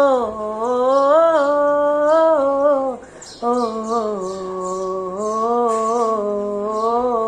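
A man's wordless singing: long held notes that glide up and down, with a short pause for breath about three seconds in.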